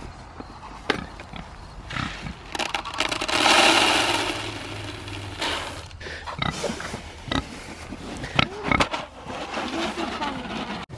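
Grain pouring into a rubber feed pan as a loud rushing noise lasting about three seconds, then pigs grunting and chomping at the feed, with scattered short clicks and brief squeals.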